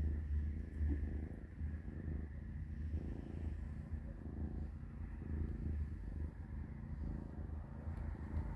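Kitten purring, a low, rhythmic purr that swells and fades in a loose cycle.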